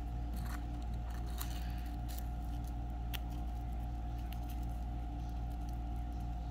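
Light crinkles and small clicks of dried rose petals being picked up and dropped onto soap in a silicone mould, a few at a time, over a steady low hum.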